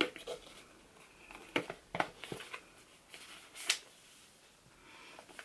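Cardboard gift box and its satin ribbon being handled as the bow is pulled off and the box turned over: faint rustling and a few light taps and clicks, the sharpest about three and a half seconds in.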